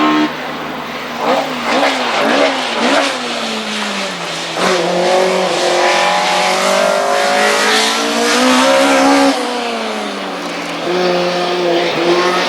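Race-prepared touring car engine at hard throttle, its pitch rising and dropping quickly several times about a second in as it works through the gears, then climbing slowly and falling again before settling.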